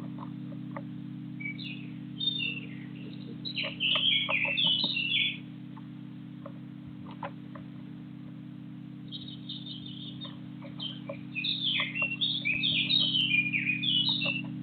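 A small songbird singing in two bouts of rapid, chirpy notes, the first ending about five seconds in and the second starting a few seconds later. A steady low hum runs beneath, with scattered faint ticks.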